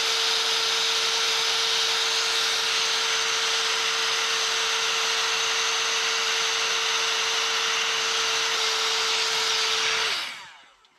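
Aerosol electric contact cleaner hissing steadily as it is sprayed onto the amplifier's relay contacts, with a faint steady tone under the hiss. It fades out near the end.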